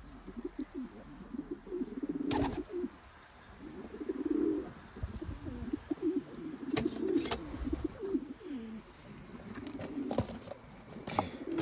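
Domestic pigeons cooing over and over in a loft, with a few sharp clicks in between.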